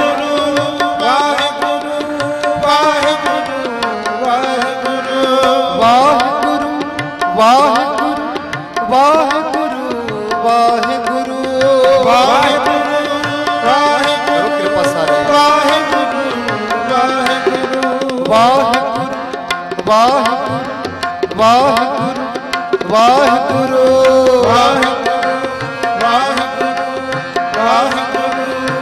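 Sikh kirtan music: harmonium chords and melody held over a steady drone, with a tabla pair playing a running rhythm of sharp strokes. A voice sings long, gliding melodic phrases over them.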